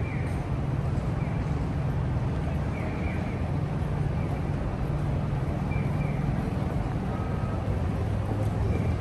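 Busy street ambience: a steady low engine hum under faint crowd chatter.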